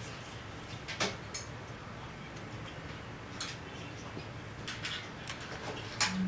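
Scattered light clicks and taps of small repair tools against a smartphone's parts, about seven in all, with a louder click near the end.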